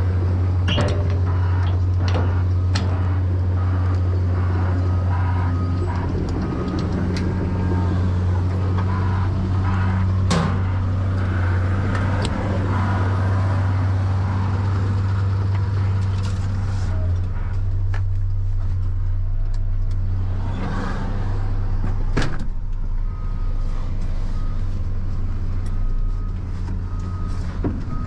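Diesel earthmoving machine's engine running steadily under load, with irregular knocks and clunks throughout.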